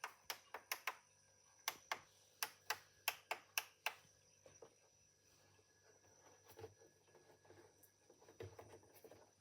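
Front-panel buttons of an unpowered Korg Prophecy synthesizer being pressed: a quick run of sharp clicks over the first four seconds, then a few faint handling sounds.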